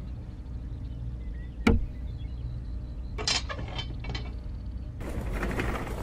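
Hard plastic toy parts being handled: one sharp click about two seconds in, a few lighter clicks later, and a rustling scrape near the end, over a steady low hum.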